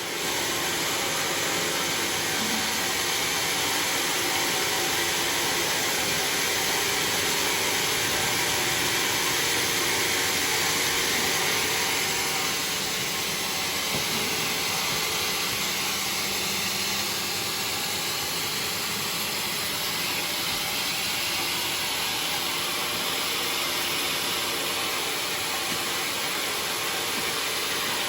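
Sawmill saw cutting through a red bayur log, a steady loud noise that eases slightly about twelve seconds in.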